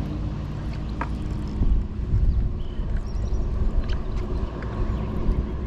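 Boat motor running over the water, with wind rumbling on the microphone.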